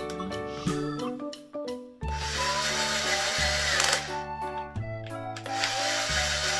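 Small electric motor of a children's toy cordless drill whirring as it drives a plastic screw into a plastic toy locomotive, in two runs: one starting about two seconds in and lasting a few seconds, a second starting again shortly after. Light children's music with mallet-like notes plays underneath.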